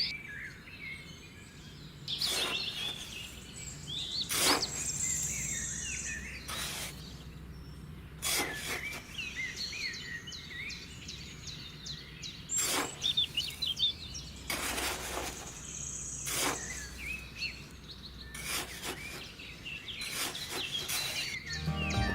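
Small birds chirping and twittering continuously, over a low steady background hum, with occasional short knocks or taps at irregular intervals.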